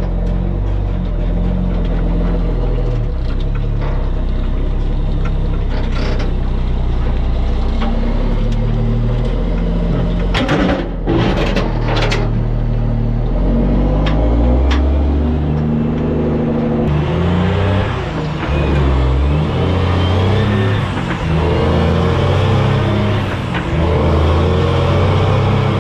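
Mack truck's diesel engine running on the road, its pitch stepping up and down as it goes through the gears. About two-thirds of the way through, a rushing road noise grows louder.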